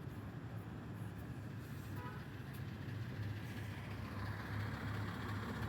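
Large vehicle engine, likely a bus, running steadily with a low rumble that grows a little louder after about four seconds.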